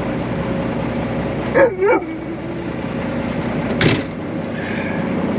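Steady engine and road drone inside a moving truck's cab. About a second and a half in, a short whining call bends up and down, and near four seconds there is a sharp click.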